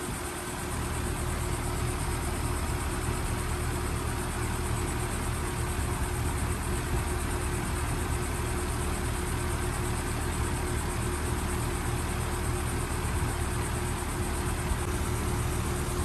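Outdoor unit of a 2021 two-ton Maratherm heat pump running steadily in cooling mode: a constant compressor hum under the air rush of the spinning condenser fan.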